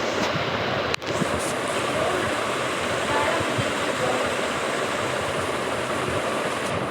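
Steady loud rushing hiss, like heavy background noise on the recording, with a brief dropout about a second in.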